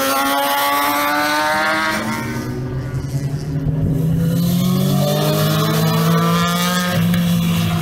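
Sportbikes accelerating hard past one after another, engines revving with a rising pitch. The pitch dips about two seconds in, then climbs again as the next bikes come through.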